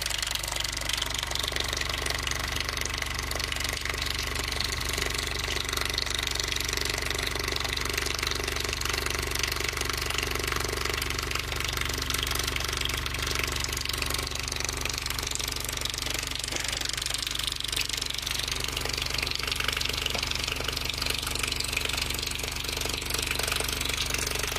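A subwoofer playing a steady, unbroken low tone to shake a thin stream of water from a garden hose running past its cone. The water splatters with a hiss over the drone.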